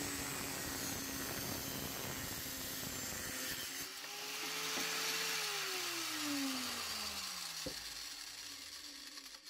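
Kinzo angle grinder in a chop-saw stand cutting through 15 mm copper pipe, its motor running steadily under load with a loud hiss from the cut. About four seconds in the load comes off and the motor picks up speed. It is then switched off and winds down, its pitch falling.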